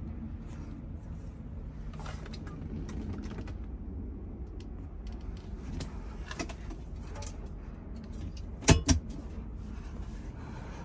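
A steady low rumble with scattered light clicks and two sharp knocks in quick succession near the end.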